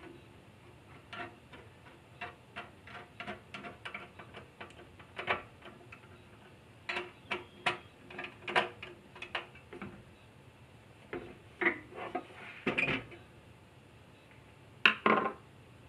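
Hand screwdriver turning screws into a metal bracket on top of an 852D soldering rework station: small irregular clicks, a few a second, with louder clicks and metal knocks in the second half.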